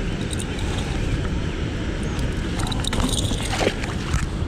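Wind rumbling on the microphone, with a few small clinks and a brief scraping rustle about three seconds in.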